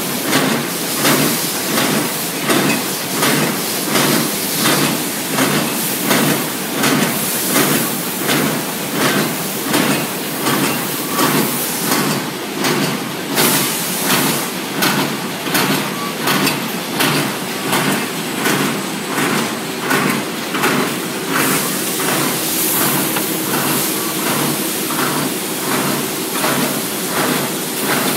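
Handkerchief-tissue packing machines running, with a regular clatter a little faster than once a second over a steady mechanical hiss; the beat grows weaker near the end.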